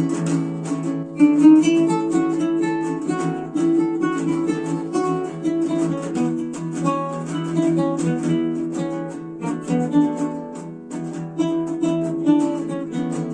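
Acoustic guitar played solo: quick picked notes mixed with strums. A final chord is struck at the very end and left ringing.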